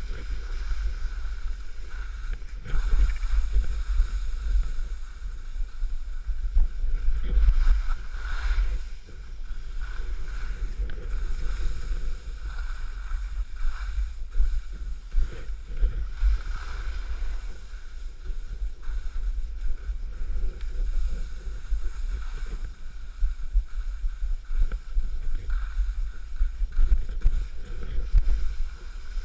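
Wind buffeting the microphone of a skier's action camera during a downhill run, a heavy low rumble, over the irregular hiss and scrape of skis sliding on soft snow.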